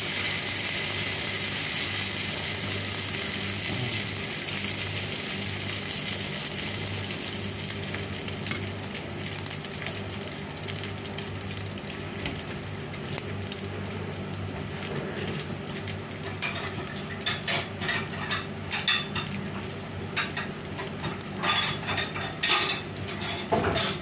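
Millet-and-vegetable patty batter sizzling in a little oil on a hot flat iron pan. The sizzle is strongest at first and slowly settles. In the last third come scattered light clicks and scrapes of a spoon against the pan and bowl.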